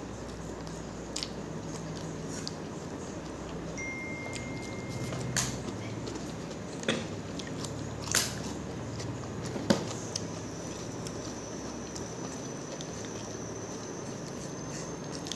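Hand-eating sounds: fingers mixing rice and curry on a plate, and chewing with a few sharp wet mouth clicks and smacks, the loudest about halfway through as a handful of food goes into the mouth, over a steady hiss.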